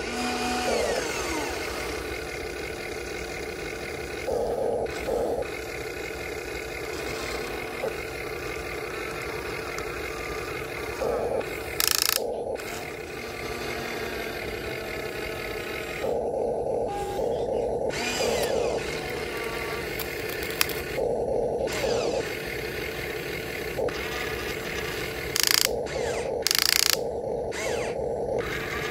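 The small electric motors and gearboxes of a radio-controlled excavator whir as it works, starting and stopping every second or so, with the pitch sliding as the motors speed up and slow down. A few short, louder clattering noises come near the middle and near the end.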